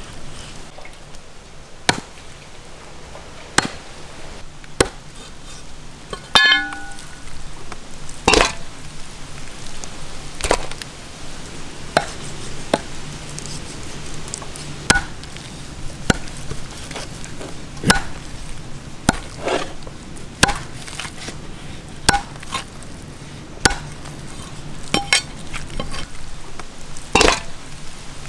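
Knife and cleaver chopping stingray flesh on a wooden chopping block: sharp, irregular chops, about one every second or two, with a brief ringing note about six seconds in.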